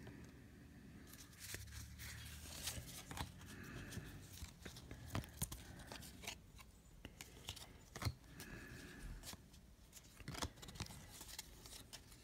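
Baseball trading cards being thumbed off a stack one after another: faint sliding and rustling of card stock, with irregular small clicks as card edges snap past each other.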